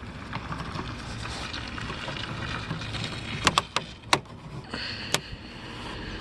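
A few sharp clicks in quick succession in the middle of the stretch, with one more a second later, over a steady low hiss.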